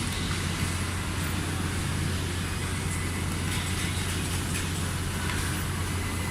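Large rotating-head CNC sewing machine running: a steady low hum under an even mechanical noise, with faint scattered clicks.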